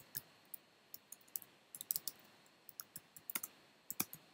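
Typing on a computer keyboard: irregular keystroke clicks in small clusters with short pauses between them.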